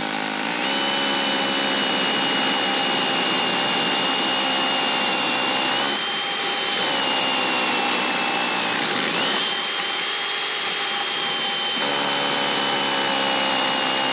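DeWalt 20V MAX XR cordless rotary hammer driving a 7/8-inch masonry bit into brick, hammering continuously under load with a high motor whine. The whine sags and shifts around the middle of the run, then picks back up.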